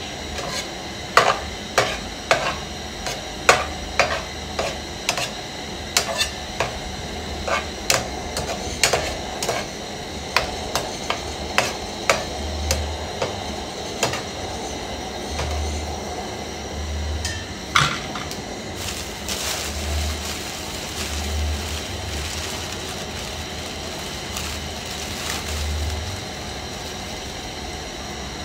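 Slotted metal spoon stirring scrambled eggs in a frying pan, clinking and scraping against the pan about once or twice a second for the first eighteen seconds or so, with the eggs sizzling in the hot pan.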